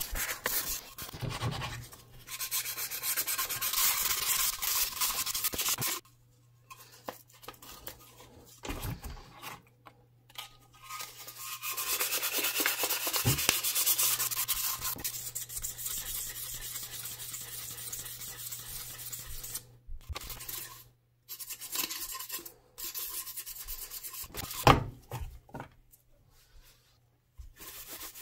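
Sandpaper rubbed by hand over a WW1/WW2 Browning machine-gun oiler's metal can, in spells of strokes with short pauses between. A single sharp knock comes about three-quarters of the way through.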